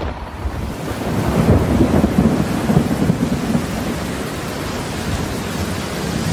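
Thunderstorm: rumbling thunder over steady rain, starting suddenly and swelling louder in the first few seconds before settling into an even downpour.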